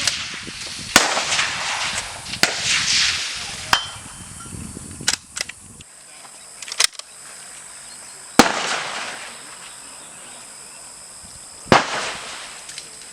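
Suppressed centre-fire rifle shots: three loud reports, about a second in, at about eight and a half seconds and near twelve seconds, each trailing off in an echo, with fainter sharp cracks between them.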